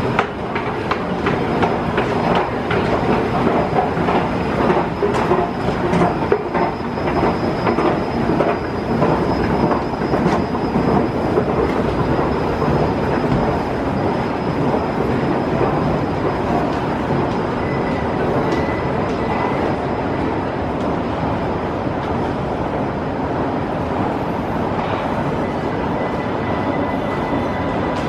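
Underground metro station noise: a loud steady rumble, with irregular clicks through the first ten seconds or so and a faint thin whine now and then.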